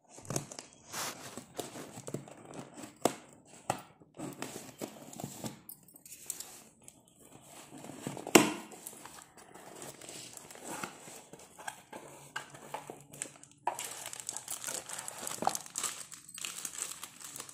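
Packing tape on a cardboard box being cut and slit open, irregular scrapes, snips and rustles of tape and cardboard, with one sharp knock about eight seconds in. From about fourteen seconds in the flaps are pulled open and the packaging crinkles steadily.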